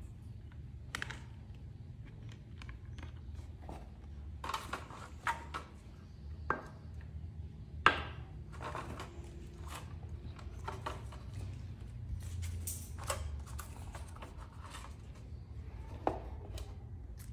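Scattered clicks and taps of alligator clips and wires being handled and clipped onto battery terminals, the sharpest click about eight seconds in, over a low steady hum.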